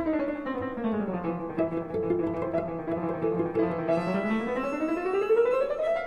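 Background instrumental music; its melody slides down in pitch, holds low, then slides back up near the end.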